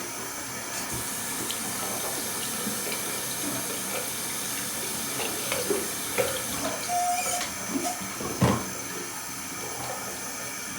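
Tap water running into a sink, with small knocks and a louder clunk about eight seconds in.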